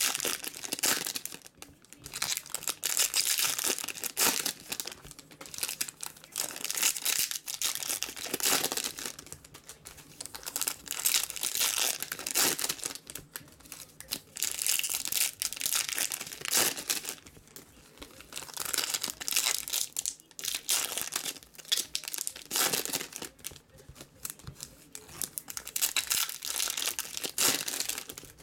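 Foil wrappers of 2017 Topps Chrome baseball card packs crinkling and tearing as the packs are ripped open by hand, in repeated bursts of crackling with short pauses between.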